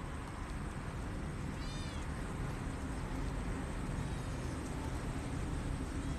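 Steady low background rumble of an outdoor recording, with one short, high-pitched animal call about one and a half seconds in and a fainter one about four seconds in.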